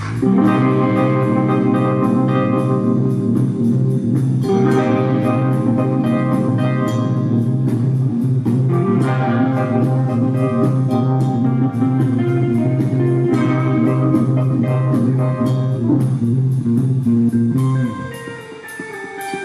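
A rock band playing live: electric guitar, bass, drums and keyboards, with a steady tick of cymbals over sustained chords. Near the end the band drops away for a moment, then comes back in.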